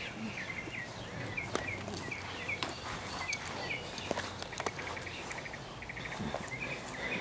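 A songbird chirping: short high notes two or three times a second for a few seconds, then a quick trill about five seconds in. Faint scattered scuffs and thumps of bodies and feet on grass underneath.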